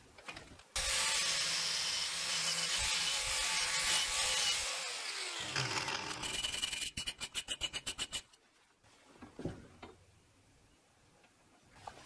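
Power tool with a knotted wire cup brush scouring rust off an old steel nail. It starts about a second in and runs steadily with a faint high whine for several seconds. Then a hand wire brush scrubs quickly back and forth on the nail head, about seven strokes a second, for just over a second.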